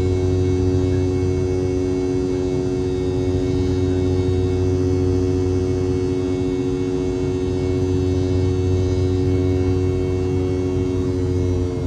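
Boeing 717-200's rear-mounted Rolls-Royce BR715 turbofan engines running at climb thrust, heard inside the cabin right beside the nacelle: a steady, loud hum of several held tones with a slow pulsing beat. The tones begin to sink slightly at the very end.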